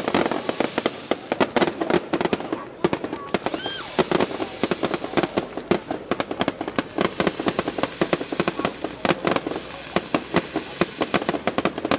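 Fireworks going off in a dense, rapid run of cracks and bangs, with people's voices underneath. A short whistle rises and falls about four seconds in.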